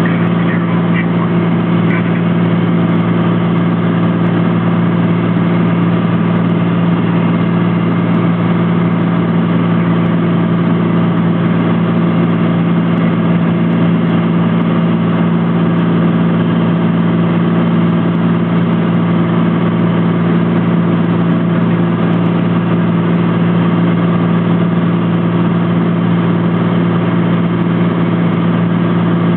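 Cockpit drone of a Cessna T182T Turbo Skylane in flight: the turbocharged Lycoming six-cylinder engine and propeller running at a steady power setting, a constant hum with no change in pitch or level.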